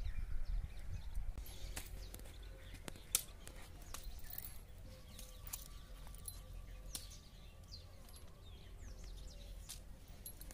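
Quiet outdoor farmyard ambience: a steady low rumble with faint bird chirps and a few sharp clicks, one a little louder about three seconds in.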